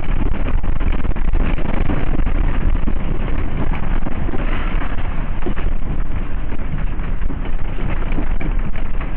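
Building shaking in an earthquake: a loud, continuous low rumble with dense rattling and clattering of loose objects.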